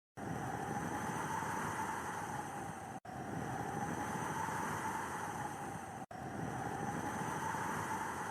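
Steady rushing snowstorm wind, a dense even noise, cutting out completely for a split second about every three seconds.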